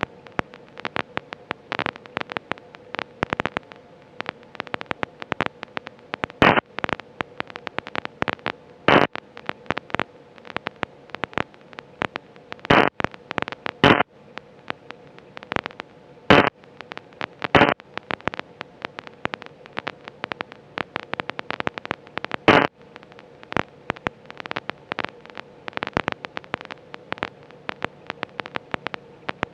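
Constant crackling on an autogyro's radio audio feed between transmissions: irregular sharp clicks and pops, several a second, with a handful of louder ones, over a steady hum.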